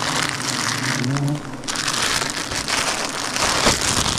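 Crinkling and rustling handling noise as giant honey bee comb is broken off, with the low hum of swarming bees for the first second or so.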